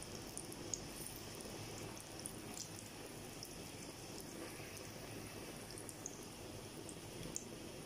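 Hot oil sizzling steadily around rice kibbeh deep-frying in a pot, with scattered small crackles and one sharper tick near the start.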